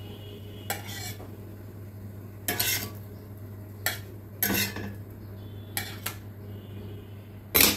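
Steel spatula scraping and clinking against a black iron tawa as cooked theplas are lifted off onto a plate: a handful of short scrapes and clatters, the loudest near the end, over a low steady hum.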